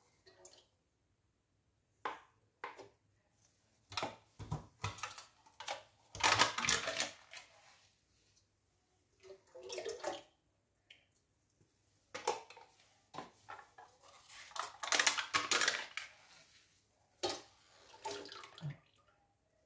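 Cream being poured and emptied from small plastic cups into a stainless steel stand-mixer bowl, with the cups knocked and handled: irregular bursts of noise and short knocks, loudest about six seconds in and again about fifteen seconds in.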